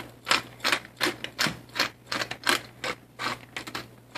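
Hand-twisted stainless steel pepper mill grinding peppercorns: a short crunchy rasp with each twist, about two or three twists a second.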